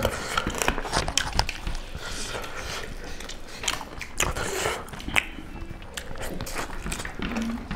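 Close-up eating sounds of people biting and chewing curry and meat eaten by hand: a run of wet clicks and smacks at an uneven pace.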